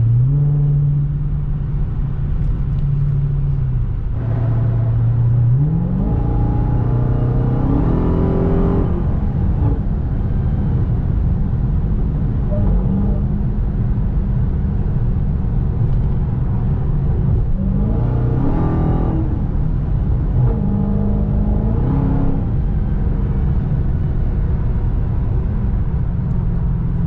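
Dodge Charger Hellcat's supercharged V8 and road noise heard inside the cabin at highway speed, with the engine note rising several times as the car accelerates.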